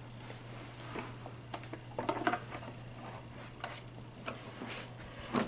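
Scattered light clicks and knocks of plastic toy-bike parts being handled, a few louder ones about two seconds in and near the end, over a steady low hum.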